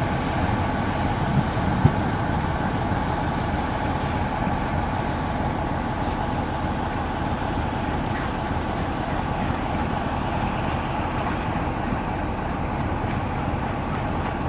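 A train running: a steady mechanical rumble with a faint constant hum, unchanging throughout.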